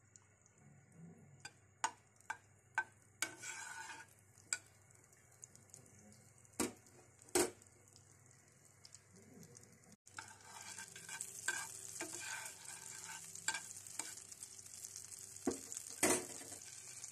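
Butter melting in a hot pan: scattered sharp pops and spits at first, then from about ten seconds in a steady sizzle with crackles as the butter foams.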